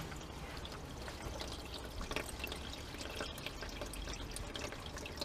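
Used engine oil pouring in a steady stream from the open sump drain hole into a plastic drain pan.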